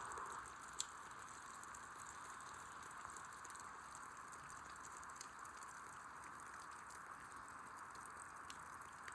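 Steady rain falling, an even hiss with a few faint ticks of drops, the clearest just under a second in.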